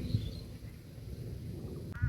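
Outdoor ambience: a low, steady rumbling noise with a few faint bird chirps that die away shortly after the start.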